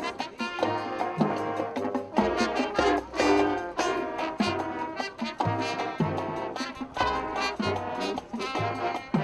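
Marching band playing: brass section carrying a melody over a steady beat of bass drums and percussion.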